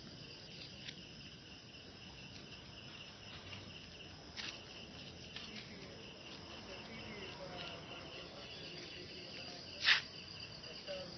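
Crickets chirping in a steady high trill. A sharp knock cuts in about four seconds in, and a louder one near the end.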